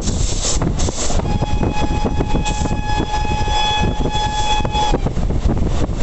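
Train horn sounding one long, steady note from about a second in, cutting off near the end, over the running rumble of the moving train and wind buffeting the microphone.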